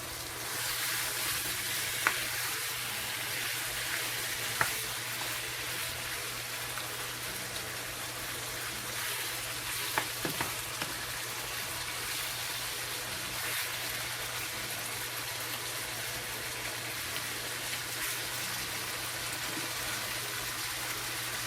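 Chicken pieces sizzling steadily as they fry in hot oil in a skillet, with a few sharp clicks about 2, 5 and 10 seconds in.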